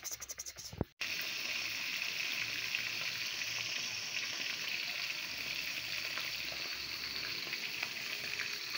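Small whole fish sizzling in hot oil in a pan on a portable gas stove: a steady frying hiss. Before it, in the first second, a rapid run of clicks that cuts off abruptly.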